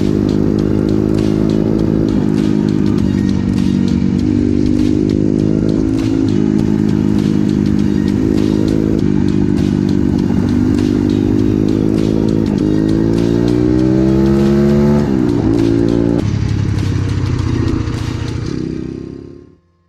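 Vehicle engine being run in after a repair, running steadily under way. About twelve seconds in it speeds up, rising in pitch, then drops sharply, and the sound fades out near the end.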